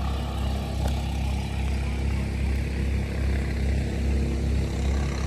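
Small engine running steadily at an even speed: a low, constant drone with a slight pulse.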